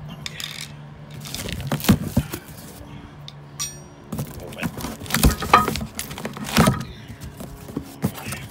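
A corrugated cardboard box being opened by hand after its tape seam was slit with a screwdriver: irregular scraping, rustling and knocks of the cardboard flaps, with one brief metallic ping about three and a half seconds in.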